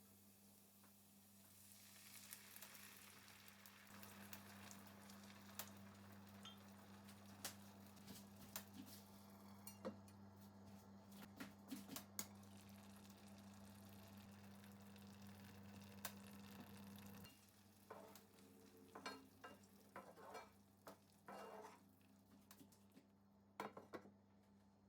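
Pork sizzling faintly in a frying pan while it is stirred, with frequent clicks and scrapes of a utensil against the pan. A steady low hum runs underneath and stops about two-thirds of the way in, after which the sizzle drops and the scraping and knocking stand out.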